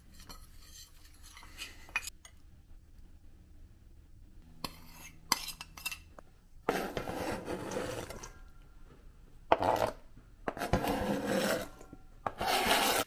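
A metal spoon clinking and scraping in a small ceramic bowl as spice is mixed with oil, then food being scraped into a stainless steel mixing bowl: several noisy scrapes of a second or two each in the second half.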